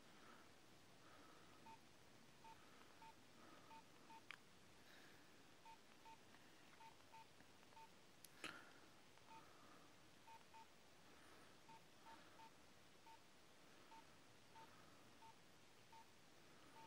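Nokia 6230i keypad beeps: short, faint, identical tones as keys are pressed, irregularly about one or two a second, with a few sharp clicks, the loudest about eight and a half seconds in.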